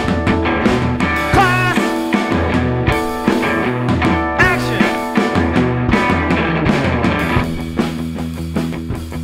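Rock band playing an instrumental stretch of a song, with no singing: drums, electric guitar and bass, with a few bending notes. The upper part of the music thins out about seven and a half seconds in.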